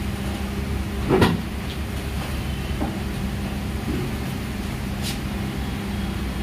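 Steady low mechanical hum of workbench equipment, with one sharp knock about a second in and a few light clicks after it.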